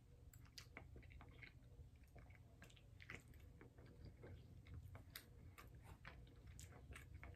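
Faint chewing of a mouthful of food, with scattered small, irregular mouth clicks.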